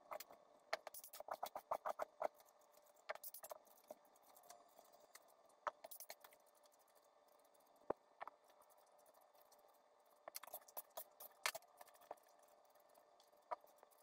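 Handheld corn kernel peeler scraping kernels off a raw cob, the cut kernels pattering onto a cutting board: faint runs of quick crackling clicks, one burst per stroke, with short pauses between strokes.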